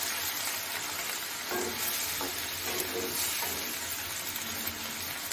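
Tomato curry, just thinned with water, sizzling in a nonstick frying pan as a spatula stirs it. There is a steady hiss, with a few soft stirring sounds in the middle.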